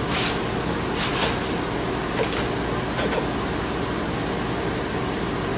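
Steady blowing of a laser cutter's honeycomb vacuum hold-down table, with a few light ticks and rustles as thin walnut veneer scrap pieces are lifted out of the cut sheet.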